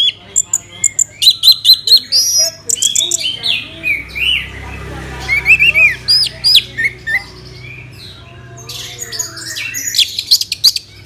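Orange-headed thrush singing a varied song of sharp chirps, quick runs of repeated notes and slurred whistles. It comes in loud bursts with a quieter spell past the middle.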